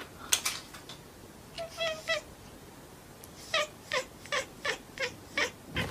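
Domestic cat meowing: one drawn-out meow about two seconds in, then a quick run of short meows, each falling in pitch.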